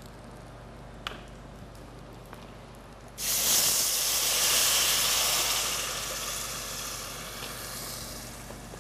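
Water poured from a bottle into a hot pot of rice and vermicelli browned in ghee. It hisses and sizzles loudly all at once about three seconds in, then dies away slowly as the water takes the heat.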